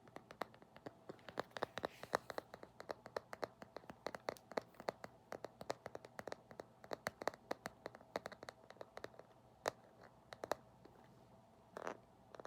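Quick, irregular tapping, several light taps a second, for ASMR. The taps thin out to a few scattered ones near the end.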